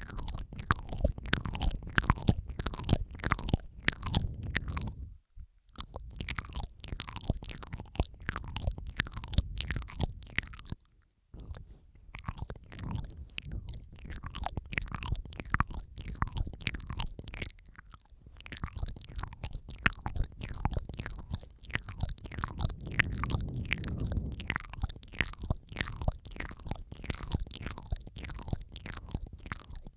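Close-miked wet mouth sounds: rapid tongue clicks and smacks, several tracks layered over each other. There are two short breaks, about five and about eleven seconds in.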